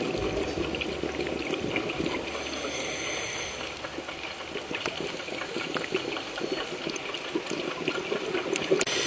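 Underwater ambience picked up through a dive camera's housing: a steady watery hiss dotted with many small crackling clicks.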